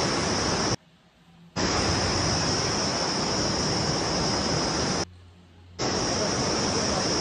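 Steady rushing noise of a fast floodwater torrent. It cuts out abruptly twice for under a second, about a second in and again about five seconds in.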